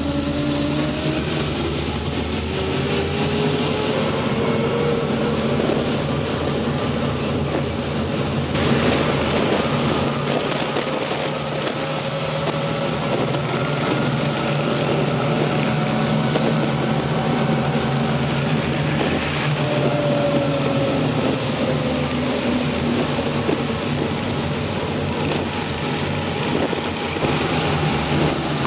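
Steady engine, tyre and wind noise from inside a moving vehicle on the road, the engine's pitch rising and falling slowly with speed.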